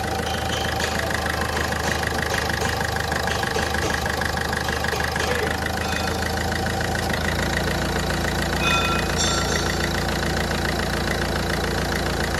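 Ford Fiesta's Duratorq TDCi common-rail diesel engine idling steadily, running smoothly without a misfire on its newly replaced injectors.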